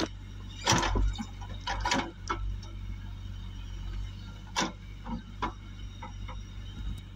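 JCB backhoe loader's diesel engine running steadily as its bucket pushes soil back into a pipeline trench, with several short sharp knocks and clatters from the bucket and falling earth.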